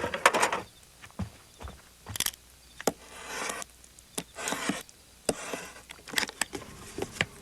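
Scattered knocks, taps and clicks with a few short bursts of rustling and scraping: sound effects of hands handling and working at wet material.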